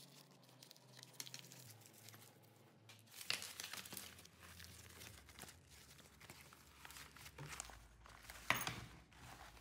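Fabric chest holster being handled: faint rustling and crinkling of the material and straps, louder for a stretch starting a little over three seconds in, with a sharp, brief sound near the end.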